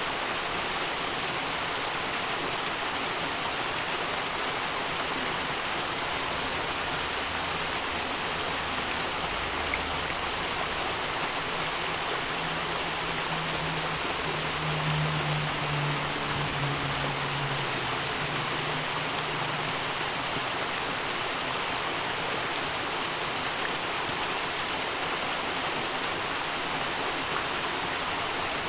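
A small wild mountain stream rushing steadily, an even hiss of water with no breaks.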